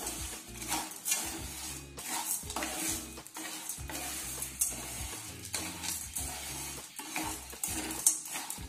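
Wooden spatula stirring and scraping granulated sugar around a non-stick pan in repeated strokes while the sugar starts to melt.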